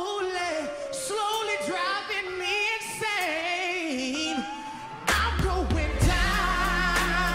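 Male soul singer performing live, sliding through ornamented held notes over sparse backing, with the full band's heavy bass and drums coming in about five seconds in.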